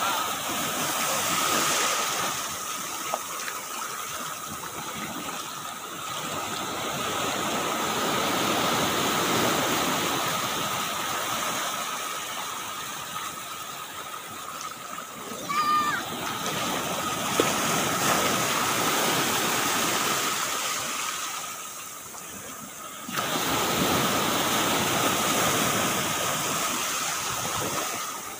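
Small waves breaking on a sandy beach and washing up the shore, the surf swelling and easing every few seconds. A faint steady high hum runs underneath, and a brief pitched sound comes about sixteen seconds in.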